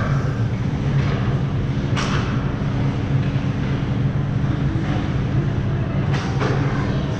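A steady low mechanical hum, with a sharp knock about two seconds in and a few more knocks around six seconds in.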